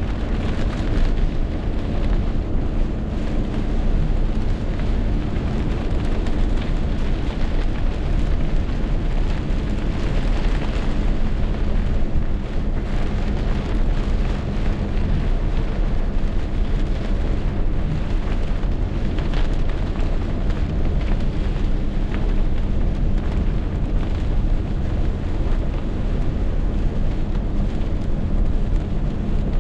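Heavy rainstorm: a steady, loud downpour with wind, a continuous rumble with no break.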